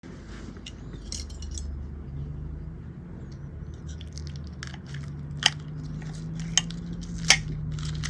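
Cutlery and dishes clicking and clinking at a meal, with three sharp clicks in the second half, over a steady low hum.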